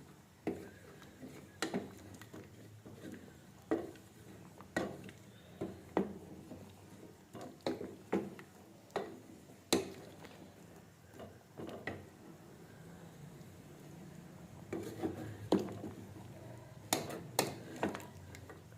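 Cooking utensil clinking and knocking against a pot on the stove, irregular light knocks about once a second, with a busier run of them near the end.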